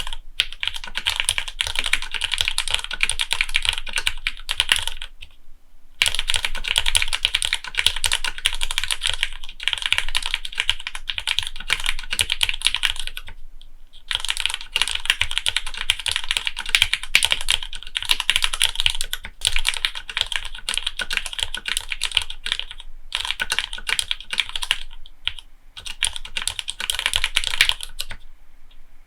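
Fast typing on a gasket-mounted Monstargear Sangeo60 (Shark60) 60% mechanical keyboard fitted with lubed Cherry MX Black linear switches and Dark Olivia-style keycaps: dense runs of keystrokes lasting several seconds. The typing stops briefly about five and a half, thirteen and a half and twenty-three seconds in.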